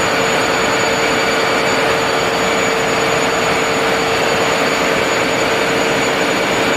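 Ship's engine-room machinery running: loud, steady mechanical noise with a constant whine held through it, unchanging throughout.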